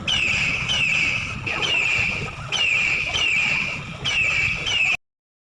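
Recorded bird call from a robotic bird exhibit: a high, steady note that sweeps upward at its end, repeated about every second. It cuts off suddenly near the end.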